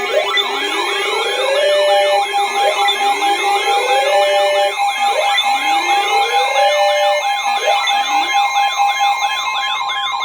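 Several electronic sirens sounding together: slow wails that rise and level off about every two and a half seconds, fast yelping warbles above them, and steady alarm tones underneath.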